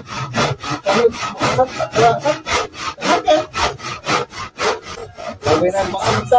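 Handsaw cutting through a wooden plank, in quick regular back-and-forth strokes of about four to five a second.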